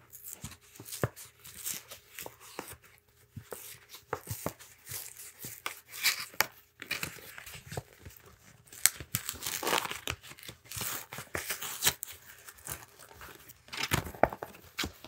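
A USPS Priority Mail envelope being torn open by hand: irregular tearing and crinkling of paper, with several sharper rips.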